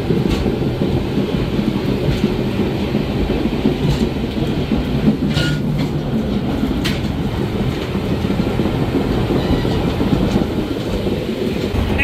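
Old diesel-hauled heritage train running along the track, heard from the open end platform of a carriage: a steady low rumble of wheels on rails and the rattling carriage, with a few sharp clacks in the middle.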